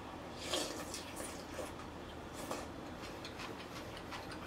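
Close-miked eating sounds: irregular wet clicks and smacks of chewing, loudest a little after half a second in and again about two and a half seconds in.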